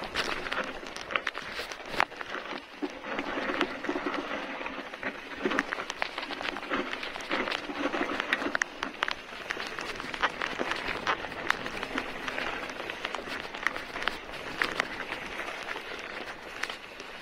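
Mountain bike rolling fast down a dirt trail: tyres crunching over loose dirt and dry leaves, with frequent sharp rattles and knocks from the bike over bumps.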